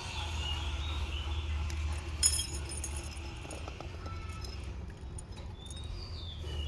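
Automatic gate in motion with a steady low motor hum and a faint squeal dying away in the first second, then a sharp metallic clank a little over two seconds in, followed by a few lighter clinks. A few short high chirps come near the end.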